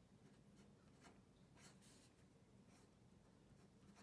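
Faint scratching of a pen or pencil writing on a paper worksheet, in short separate strokes.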